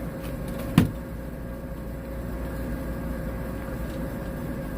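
Steady mechanical hum with a faint steady tone, broken by a single sharp knock just under a second in.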